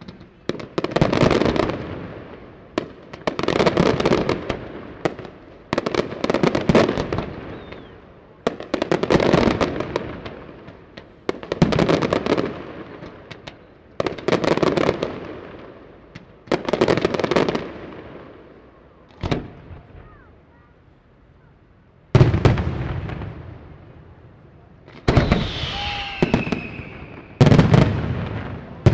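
Aerial firework shells bursting one after another, about one every two to three seconds, each bang trailing off in crackle. There is a short lull with a single sharp bang about two-thirds through, then heavier, deeper bursts with a whistle gliding down among them near the end.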